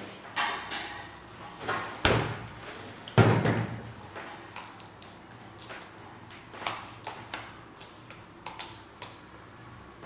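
Rustling and soft knocks as quilt fabric is handled and smoothed by hand on a padded pressing board. The loudest knocks come about two and three seconds in.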